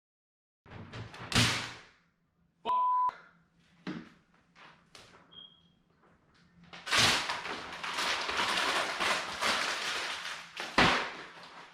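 Knocks and handling noises, with a loud, short, steady beep about three seconds in. After that come several seconds of dense rustling noise, broken by a sharp thud near the end.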